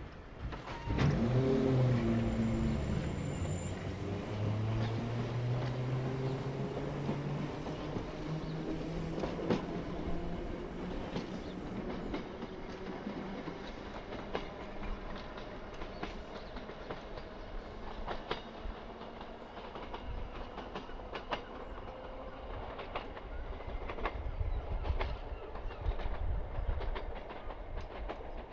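Ex-London Underground 1938-stock Class 483 electric train pulling away: its traction motors start about a second in with a whine that rises in pitch over the first several seconds, then its wheels click over the rail joints as it runs off.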